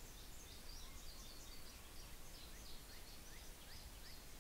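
Faint songbird singing: a quick, continuous run of high chirps and short downward-sliding notes, over a low steady rumble of background noise.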